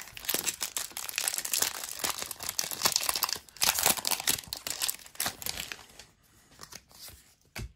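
Foil wrapper of a Pokémon trading-card booster pack crinkling and tearing as it is ripped open, a dense crackling for about six seconds that then dies down to faint rustles.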